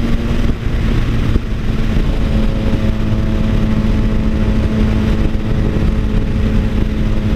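Triumph Tiger Sport 660's three-cylinder engine at highway cruise through an Orion Toni aftermarket exhaust, a loud, steady exhaust note. The note eases briefly about half a second in, then settles back to a steady drone.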